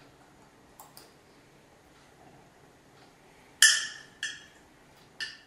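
Three short ringing strikes, each with a clear pitch that fades within about half a second, the first the loudest, after two faint clicks about a second in.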